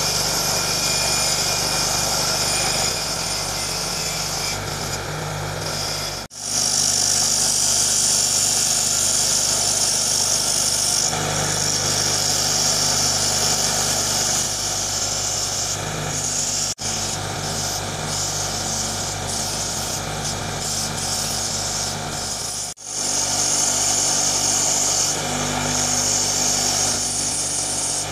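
A bench grinder runs with a steady motor hum while metal parts are pressed against its spinning wire wheel, making a loud hiss that swells and eases as the work is pushed in and pulled back. The sound breaks off briefly three times.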